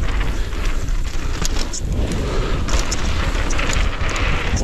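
Wind buffeting the action camera's microphone as a mountain bike rides fast down a packed-dirt jump trail, a deep constant rumble with the hiss of tyres on dirt and short clatters from the bike.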